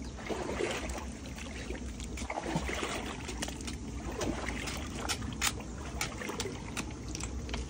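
Shallow muddy stream water sloshing and splashing around hands groping under the bank, with scattered small clicks and knocks.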